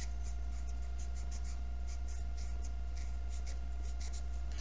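A marker or coloured pencil scratching on paper in quick short colouring strokes, about three a second, over a steady low hum.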